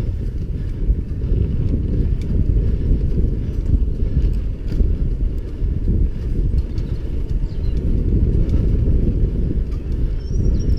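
Mountain bike riding fast over a bumpy dirt singletrack, heard from the bike itself: a steady low rumble of wind and trail vibration on the camera's microphone, with scattered clicks and rattles from the bike.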